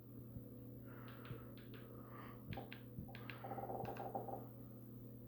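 Faint clicks of a mobile phone's keys being pressed, with a short soft buzzing tone a little past the middle.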